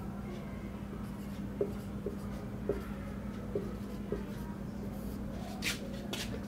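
Whiteboard marker writing on a whiteboard: a run of short squeaky strokes about half a second apart, then two quick scratchy strokes near the end, over a steady low hum.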